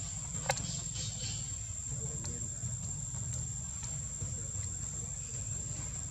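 Insects droning on one steady high note over a low rumble, with a sharp click about half a second in and a few faint clicks later.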